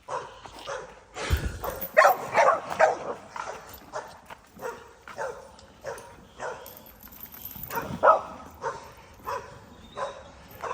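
Pit bull–type kennel dogs barking repeatedly in short, sharp barks, one or two a second, during feeding time.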